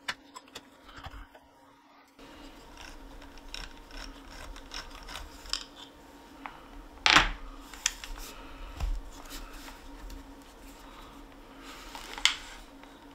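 Small clicks and knocks of parts of a partly stripped Umarex HDX 68 being handled on a workbench, with a sharper knock about seven seconds in and another near the end.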